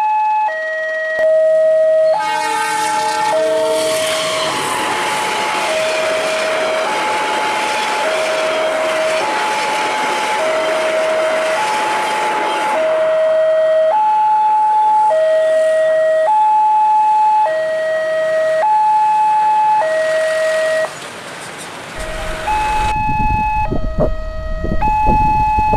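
Level-crossing warning alarm sounding a two-tone electronic chime, switching between a higher and a lower note about once a second. A passenger train rumbles past on the rails from about two seconds in until about halfway, with a brief horn near its start. Low rumbling noise covers the last few seconds.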